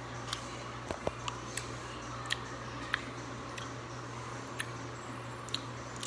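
Someone chewing a chewy Skittles candy close to the microphone: scattered, irregular wet mouth clicks, over a steady low hum.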